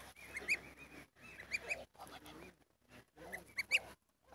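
Domestic geese calling softly: short, high, rising calls in quick clusters of two or three, with a few lower murmuring calls in between.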